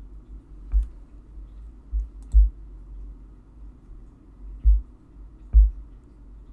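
Computer mouse clicking: about five sharp clicks with a dull thud, spaced irregularly over a few seconds.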